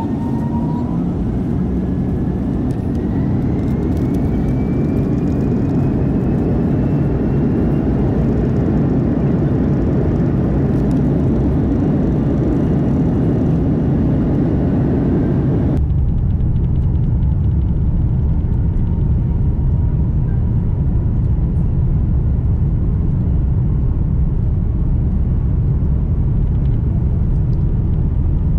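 Airliner's jet engines heard from inside the cabin over the wing, spooling up for the takeoff roll: a rising whine over a loud, steady rumble. About halfway through, the upper part of the noise drops away abruptly, leaving a duller rumble.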